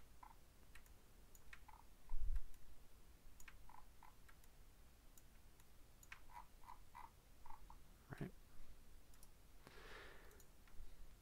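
Computer mouse buttons clicking lightly and irregularly, several clicks coming in quick pairs, with a low thump about two seconds in.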